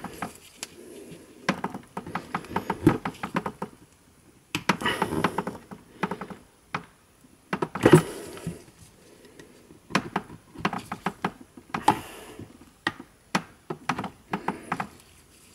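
Thin pry tool clicking and scraping under the edge of a JBL Go 2's perforated grille as it is levered off the glued case, with handling of the speaker in gloved hands. Irregular clusters of sharp clicks with short pauses, the loudest click about eight seconds in.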